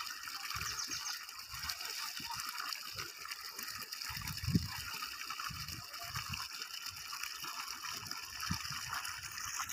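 Water gushing steadily from a white plastic pipe outlet into a shallow field channel, splashing and gurgling. Low bumps come and go underneath, with one louder bump about four and a half seconds in.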